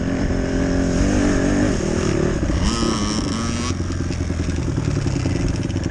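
Honda CRF150RB dirt bike's four-stroke single-cylinder engine running while ridden, the revs rising and falling with the throttle, then dropping back toward idle in the second half. A brief high-pitched squeal comes about three seconds in.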